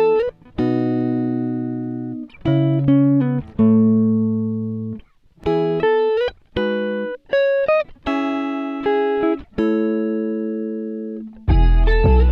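Background music: a plucked guitar playing a slow run of chords and single notes, each struck and left to ring out, with some notes sliding in pitch.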